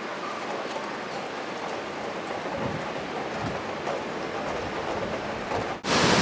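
Steady rain falling, with a faint patter of scattered drops. Near the end it cuts off, and a louder, hissier rushing sound takes over.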